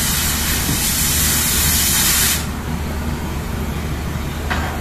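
Oxy-fuel cutting torch hissing steadily, cut off suddenly about halfway through, over the steady low hum of heavy-equipment engines. A short clank follows near the end.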